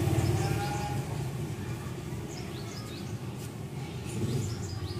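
Background ambience: a low rumble fading out, with small birds chirping in short, high, repeated chirps.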